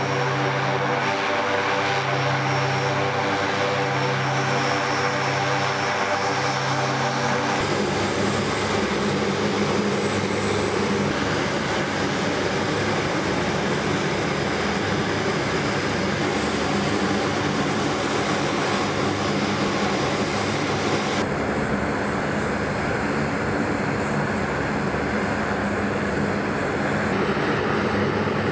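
Aircraft engine noise, mostly a KC-130J Hercules's turboprop engines running at ground idle: a loud, steady propeller drone. The sound changes abruptly about 8 s and 21 s in, and the first part holds a steady pitched hum with a pulsing low tone.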